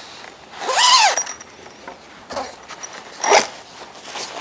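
Zipper of a fabric badminton racket cover being pulled open in two quick runs, about a second in and about three seconds in. The first run gives a whine that rises and then falls in pitch.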